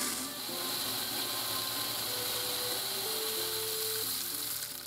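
Shelled corn pouring from a corn vending machine's auger spout into a plastic bucket: a steady rushing hiss of falling kernels that stops near the end.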